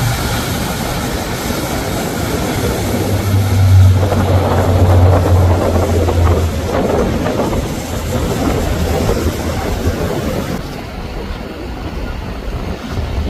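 Large motor yacht's engines droning low as it runs past at speed, over the rush of its churning wake. The drone is strongest a few seconds in, then eases off.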